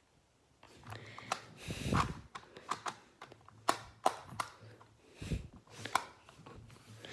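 Qiyi clock puzzle being worked by hand: a string of sharp clicks as its dials are turned and its pins pushed, with a couple of duller knocks as the puzzle is handled.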